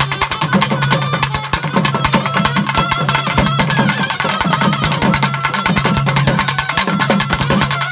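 Live Tamil Karagattam folk music: a laced barrel drum beaten in fast, dense strokes, with a wavering high melody line and a steady low tone underneath.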